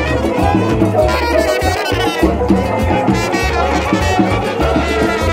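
Music played by brass instruments and drums, loud and continuous.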